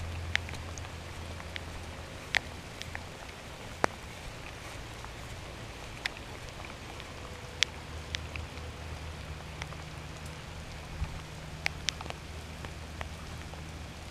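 Steady rain hiss with scattered sharp drops ticking, over a low steady hum.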